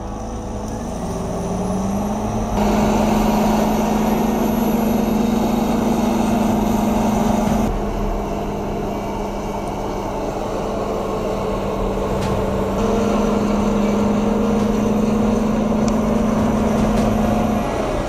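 Crawler bulldozer's diesel engine working under load as the blade pushes earth. Its note climbs in the first couple of seconds, then holds steady, getting louder and softer in stretches.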